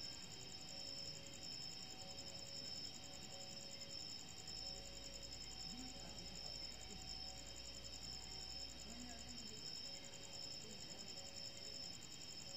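Crickets trilling at night: steady, high, rapidly pulsing chirps, with a fainter lower tone coming and going about once a second.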